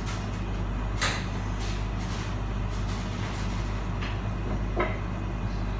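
Metal clanks as a grill pan is handled at the oven, one about a second in and another shortly before the end, over a steady low hum from a kitchen appliance.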